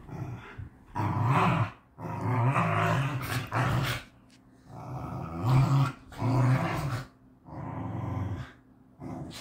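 Corgis play-growling at each other in a string of rough growls about a second long each, with short pauses between. It is rough play, not a real fight.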